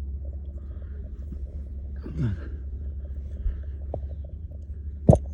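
A steady low rumble runs throughout. A brief falling hum comes about two seconds in, a faint click about four seconds in, and a sharp knock near the end, which is the loudest sound.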